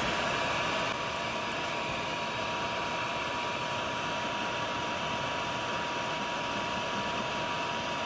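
Steady whir of a blower or fan on an electronics rework bench, with a thin steady whine running through it.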